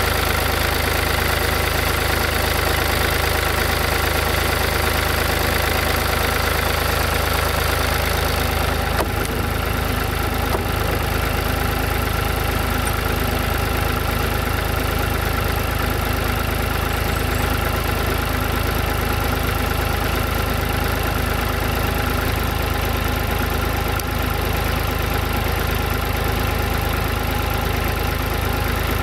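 Hitachi ZW40 wheel loader's diesel engine idling steadily just after a cold start, its tone shifting slightly about nine seconds in as it settles.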